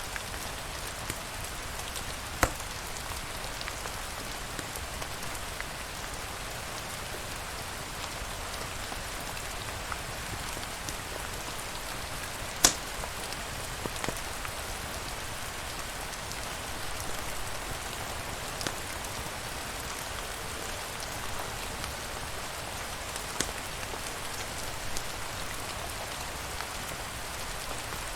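Steady rain falling, an even hiss, with now and then a single sharp crack or pop; the loudest crack comes about halfway through.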